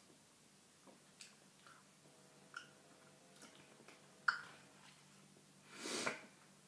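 Faint scattered clicks and taps of a cardboard jelly-bean box being handled and turned over, the sharpest a little over four seconds in, with a brief louder whooshing rustle near the end.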